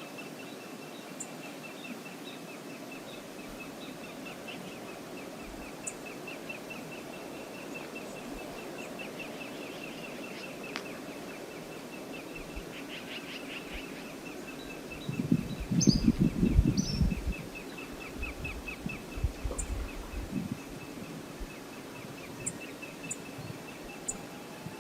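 Steady outdoor ambience with a small bird giving long runs of rapid, high chirps. About fifteen seconds in comes a loud two-second burst of low buffeting rumble, followed by a few weaker low thumps.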